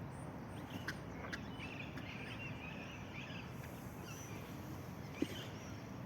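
Birds chirping and calling in short, scattered notes over a steady low outdoor background hum.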